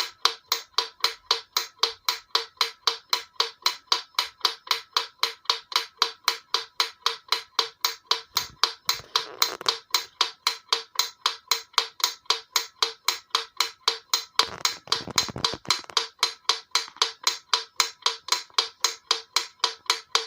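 Mechanical wind-up metronome ticking fast and evenly, about four sharp ticks a second. Twice a duller rustling noise runs under the ticks for a second or so.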